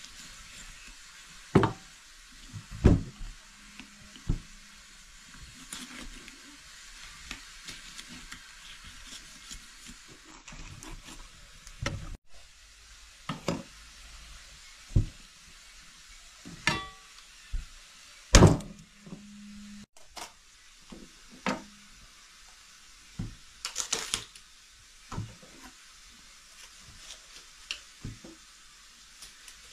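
A raw whole turkey being cut up with a large kitchen knife on a wooden chopping block: irregular knocks and thuds as the blade and the pieces hit the wood. About halfway through, one knock is followed by a brief metallic ring, fitting a piece or the knife meeting the steel tray.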